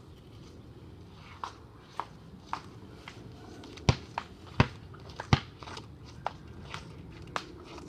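Basketball bouncing: a string of irregular sharp thumps, the three loudest a little past the middle.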